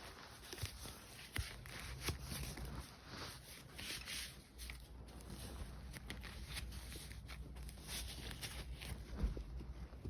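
Hands-on workshop handling noise while fitting an air filter on a dirt bike: scattered light clicks, taps and rustling of parts and tools.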